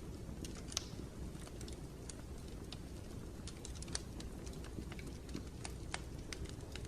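White-noise ambience: a steady low rumble with irregular light ticks and taps scattered through it.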